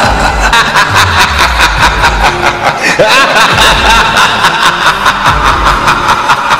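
Dense layered sound collage: a fast, even clicking rhythm over a low, intermittent rumble, with brief snatches of voice, like snickering, mixed in.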